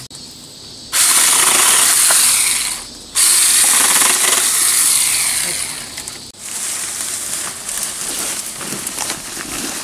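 Small handheld electric chainsaw cutting through a tree branch in two bursts, switched on about a second in and again about three seconds in, each cutting off abruptly. After that, the cut branch is dragged through the undergrowth, rustling leaves and snapping twigs.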